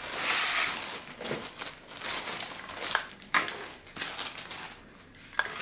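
Clear plastic bag crinkling as it is handled and a wiring harness is pulled out of it, with a few short sharp clicks along the way.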